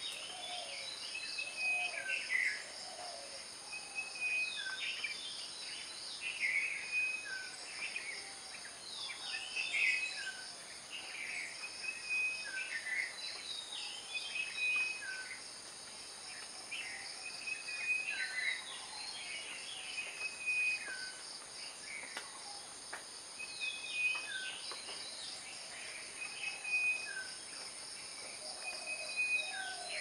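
Woodland ambience: a steady high-pitched insect drone with frequent short chirps and falling calls of small birds throughout.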